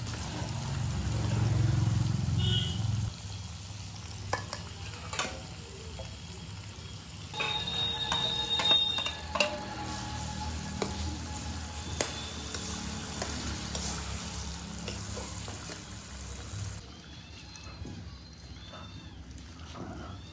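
Hand-ground spice paste sizzling in hot oil in a steel karahi, stirred with a perforated metal spatula that scrapes and clicks against the pan, with a ringing metal clang about eight seconds in.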